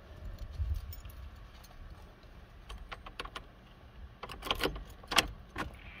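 A key ring jangling, with sharp clicks, as the ignition key is put in and turned to on; the jingles come in two clusters, around three seconds in and again from about four to five and a half seconds. There is no engine running.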